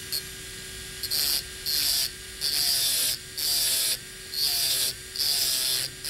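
Electric dental handpiece motors whine steadily while a heatless stone grinds against a rotating steel bur. The stone touches and lifts off in about six gritty grinding passes, roughly one a second, as it cuts a flat spot into the bur shank to make a latch-type bur.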